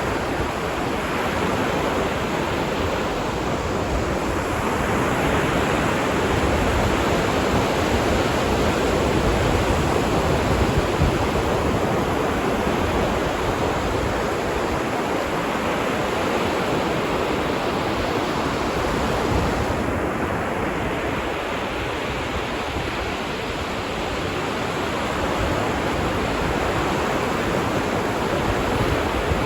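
Ocean surf washing onto a beach: a continuous rush of breaking waves that swells and eases slightly.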